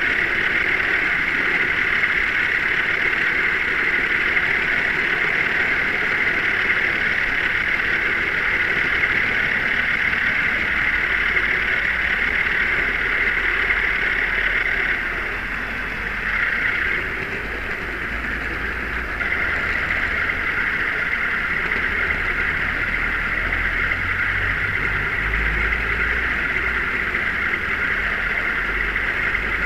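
Steady rolling noise of a four-wheel OO gauge model wagon's wheels on the rails, heard close up from a camera riding on the wagon. It drops for a few seconds about halfway, and a low rumble comes in near the end.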